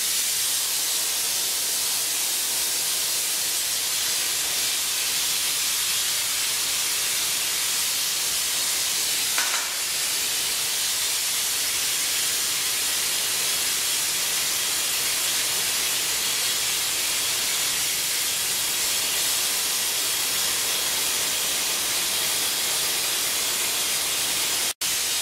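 Glassblowing lathe burner flame hissing steadily as it heats the glass joint of a fritted pressure funnel. The hiss breaks off abruptly near the end.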